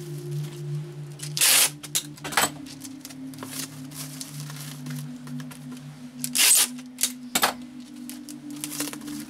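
Plastic stretch wrap and packing tape crackling in a handful of short, sharp bursts as hands press and smooth them down over a wrapped sewing machine. Soft background music with steady low tones underneath.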